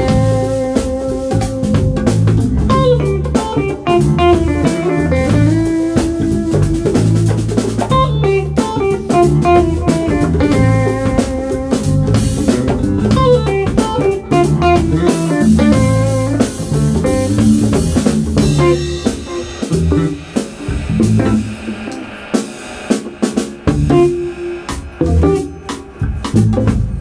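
Live band playing an instrumental passage: electric guitar lines over electric bass and a drum kit. About two-thirds of the way through, the held guitar notes drop back and the drums and cymbals come forward.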